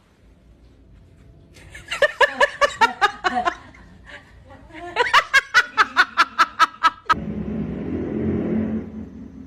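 A person laughing in two bouts of quick, rhythmic pulses, about two seconds in and again about five seconds in. Near the end a steady low hum takes over.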